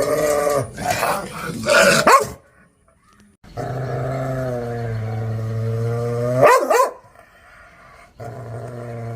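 Large dog growling low and steadily, breaking into a few sharp barks about a second in; after a short pause comes a long growl that ends in a sharp bark, and the growl starts again near the end.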